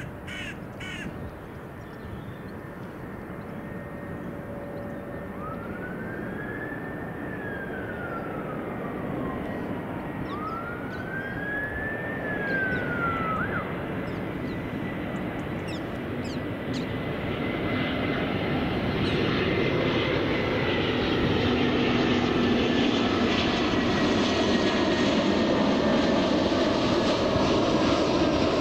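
Distant rumble of a Boeing 747's four jet engines cruising high overhead, growing steadily louder. Two short whistles that glide up and then down come a few seconds in.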